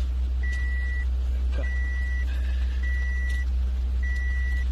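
An electronic alarm beeping: a single high tone, each beep about half a second long, repeating a little under once a second, four times, over a steady low rumble.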